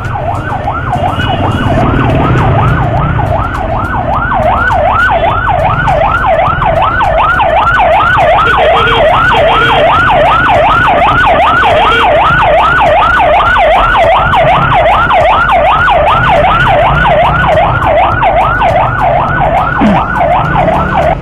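Electronic emergency-vehicle siren in a fast yelp, its pitch sweeping up and down about three times a second, loud and unbroken.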